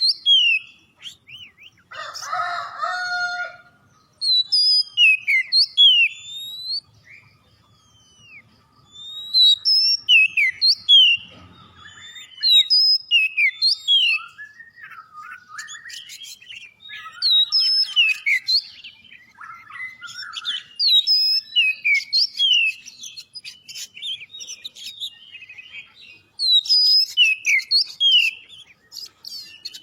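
Oriental magpie-robin (kacer) in vigorous song: rapid phrases of clear, sharply sliding whistled notes, delivered in bursts separated by short pauses, with a harsher buzzy note about two seconds in.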